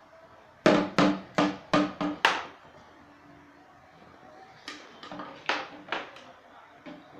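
A toddler beating on a hollow plastic container like a drum: six quick knocks, each with a brief hollow ring, then after a pause about four softer knocks.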